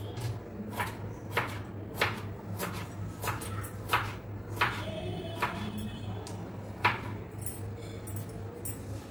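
Kitchen knife cutting a peeled potato on a cutting board: about nine sharp taps of the blade on the board, roughly one every half second or so, thinning out towards the end, over a low steady hum.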